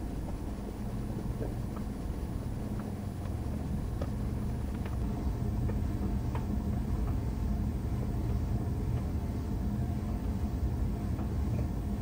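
LG heat pump dryer running, its drum tumbling a load of clothes: a steady low hum and rumble with light scattered ticks.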